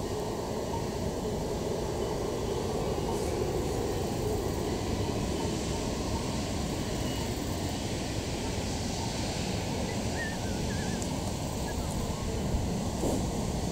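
Class 52 steam locomotive (the 150 Y) approaching slowly under steam, a steady rumble with a hiss of steam from its cylinders.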